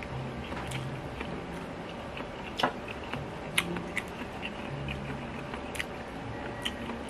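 Chewing a mouthful of rice and fried dried anchovies (dilis), with scattered mouth clicks and lip smacks, a few of them sharp.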